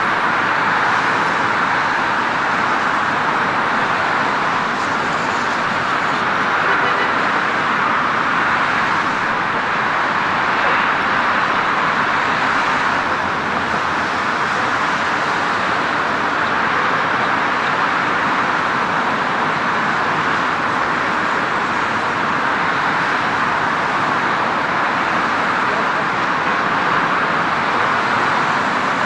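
Steady outdoor noise, like road traffic or machinery heard from afar, even and unbroken with no distinct events.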